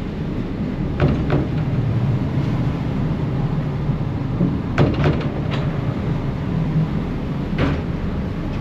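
Harbour ferry's engine rumbling steadily on deck, with a few sharp metallic knocks and clunks over it: two about a second in, a cluster around the middle, and one near the end.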